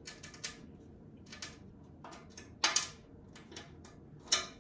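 Screwdriver prying at a knockout tab on an aluminium catalytic converter shield: a scatter of light metallic scrapes and clicks, the loudest a little under three seconds in.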